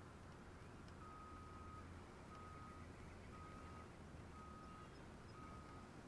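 A vehicle's reversing alarm beeping faintly, about one flat, even beep a second, starting about a second in, over a low steady hum.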